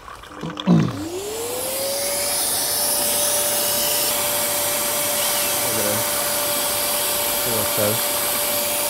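Vacuum cleaner (hoover) switched on, its motor spinning up over a second or two to a steady whine with a rush of air, then running evenly.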